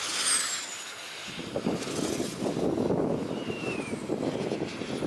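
Rotor blade of a Nordex N131 wind turbine sweeping past with a jet-like whoosh and a high whistle that glides down in pitch near the start, and a lower falling whistle about 3.5 s in. It is one blade that whistles and makes a racket, and it repeats with each turn of the rotor. A rough rushing noise runs underneath from about a second in.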